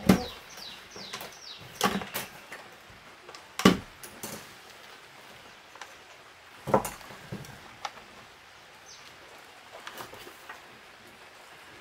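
A white plastic electrical switch panel and its wiring being handled and knocked against a bamboo mat: scattered sharp plastic knocks and clicks, the loudest at the very start and about four seconds in.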